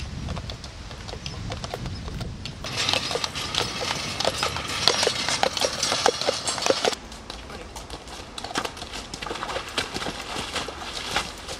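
Hooves of Belgian draft horses clip-clopping at a walk on a paved towpath, as the pair pulls a towed canal barge. The hoofbeats are loudest and most frequent from about three to seven seconds in.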